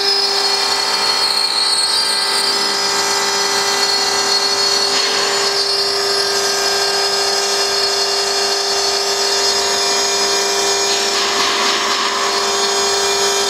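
Electric spindle of a CNC milling machine running at high speed, with a steady high whine, as its cutter mills a water-cooled stone slab. Brief rougher, hissier stretches come about five seconds in and again near the end.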